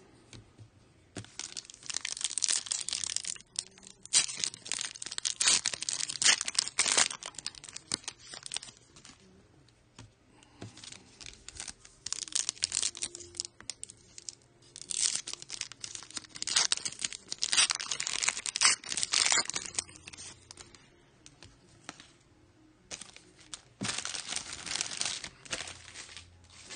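Foil trading-card pack wrapper being torn open and crinkled, with cards handled, in irregular bursts of rustling separated by quieter pauses.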